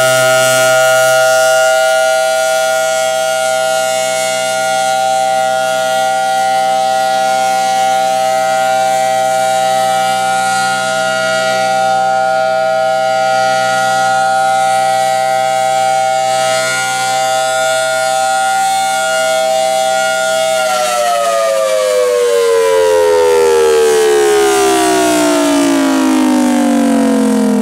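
Federal Signal Thunderbolt 1000T siren sounding a steady tone (its Alert signal), its chopper pitch set off from normal. About 20 seconds in, the pitch begins to fall steadily as the siren winds down.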